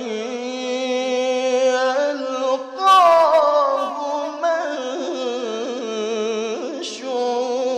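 A male qari reciting the Quran in melodic tilawah style into a microphone. He draws out the end of "kitāban" in a long ornamented note, then about three seconds in begins "yalqāhu" on a louder, higher phrase that winds back down.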